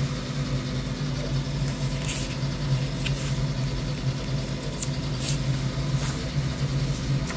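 Steady low hum with a few short, faint rustles and ticks of paper as the pages of a printed instruction manual are handled and turned.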